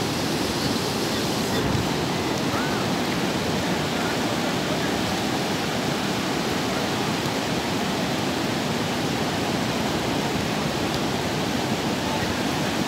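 Sea surf on a sandy beach: a steady, unbroken rush of breaking waves.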